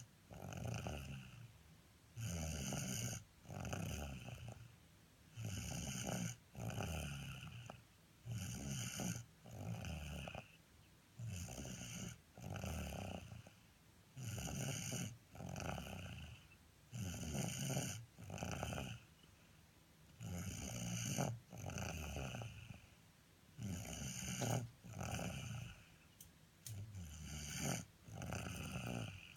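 Steady rhythmic snoring from a sleeper, a snore about every second, coming in pairs with short pauses between.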